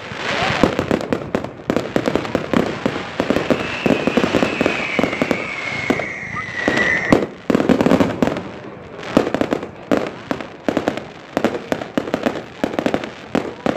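Fireworks going off in quick succession, a dense run of bangs, pops and crackle. From about three and a half to seven seconds in, a long whistle slides slowly down in pitch.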